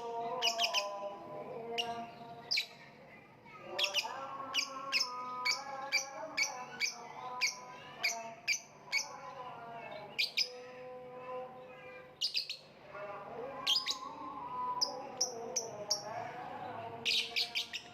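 Lovebird chirping: runs of short, sharp, high chirps, at times about two a second, over a fainter, lower warbling chatter.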